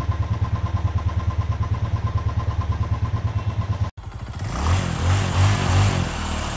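Motorcycle engine idling with an even, rapid thumping, cut off abruptly about four seconds in. A logo sting follows: a whoosh over low, wavering musical tones.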